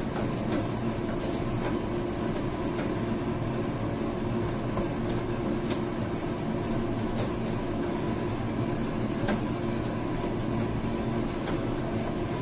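A steady machine hum, with a few faint taps and scrapes of a wooden spatula stirring thick green pea paste in a nonstick frying pan.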